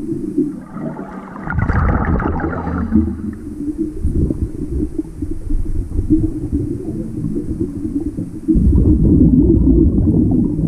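Scuba diver breathing underwater through a regulator: exhaled bubbles rumbling and gurgling, with a hissier burst about a second in and a louder stretch of bubbling near the end.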